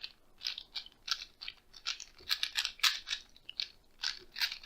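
3x3 Rubik's cube being scrambled by hand: a quick, uneven run of plastic clicks and clacks as its layers are turned, about three to four a second.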